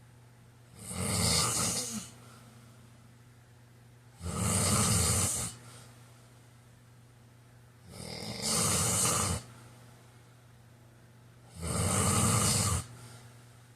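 A man snoring in his sleep: four slow, even snores, each lasting about a second, roughly one every three and a half seconds.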